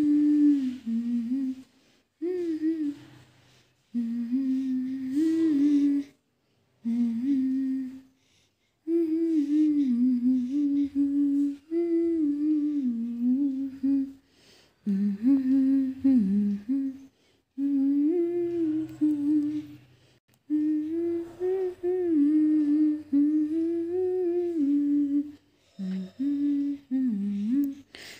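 A woman humming a lullaby tune without words, in phrases of a few seconds with short pauses between them, to lull a baby to sleep.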